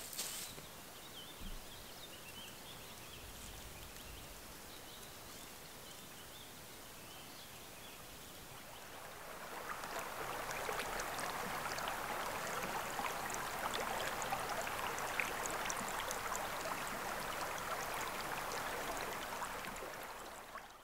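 River water rushing, a steady noisy flow that is faint at first and grows clearly louder about nine seconds in.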